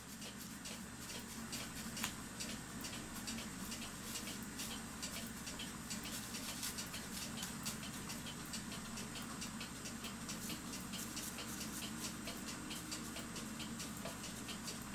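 Small flat brush dabbing and stroking copper metal leaf, the thin foil crinkling in a run of quick, light ticks.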